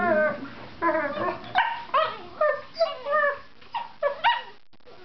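Mastiff and chocolate Labrador vocalising in rough play: a string of about ten short, pitched yips and whines that bend in pitch, coming every third to half second, a howl-like 'singing' between the two dogs. It stops shortly before the end.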